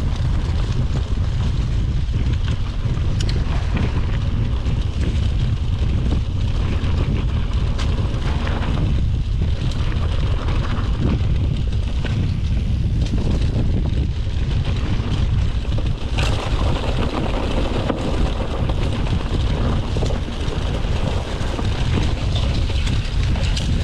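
Wind rumbling on a chest-mounted camera microphone during a mountain-bike ride, with tyre noise and scattered knocks and rattles from the bike on rough trail.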